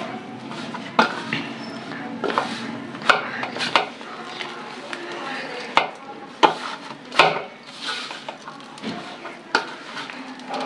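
Hands kneading crumbly whole-wheat biscuit dough in a steel bowl: soft rustling and pressing, broken by irregular sharp knocks and clicks of hands and dough against the bowl's metal.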